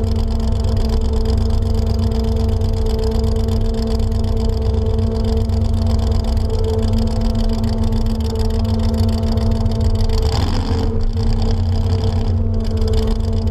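Chevrolet S-10 pickup's engine running at a steady speed as the truck rolls along, picked up by a camera mounted low on the body by the rear wheel, with a low rumble underneath. About ten seconds in, a brief rushing swell rises over it.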